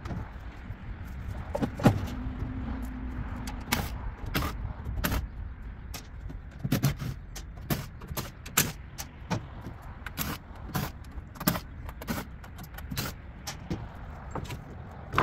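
Irregular metallic clanks and clinks as the sheet-metal casing and panels of a rooftop air-conditioning unit are handled and worked loose by hand, over a steady low rumble.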